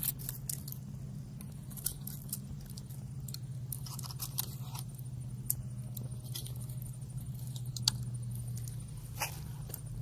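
Wood fire crackling with scattered sharp pops and clicks over a steady low hum.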